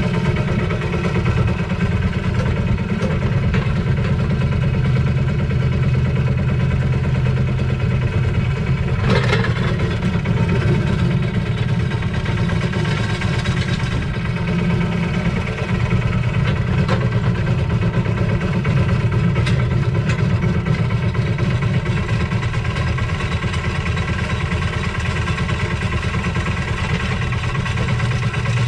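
Lister SR1 single-cylinder diesel engine of a 1979 Smalley 5 mini excavator running steadily while the digger works. One sharp clank about a third of the way in and a couple of fainter knocks later.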